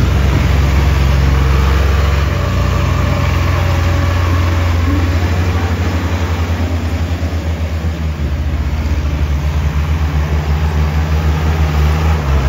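Mahindra jeep engine running as the jeep drives through deep mud: a steady low engine note that becomes a rapid, even chugging pulse about halfway through.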